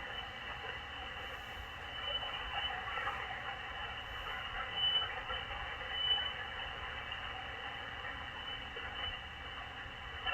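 Machilite DSP SDR shortwave receiver hissing with band static between transmissions, its audio cut off above about 3 kHz. A few short, faint beeps sit near the top of that band.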